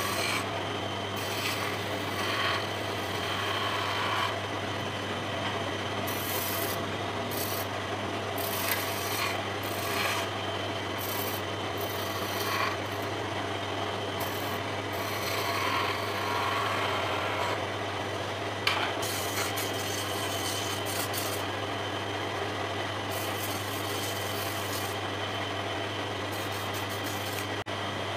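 Wood lathe running with a steady low motor hum while a hand-held chisel cuts the spinning wooden spindle, the edge scraping and shaving the wood in irregular passes.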